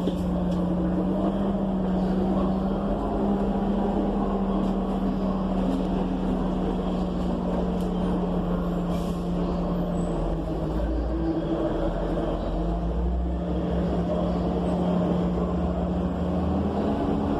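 Cummins Westport ISL G natural-gas engine of an ENC EZ Rider II transit bus running while the bus is under way, heard from inside the cabin: a steady hum over low rumble, rising slightly in pitch near the end.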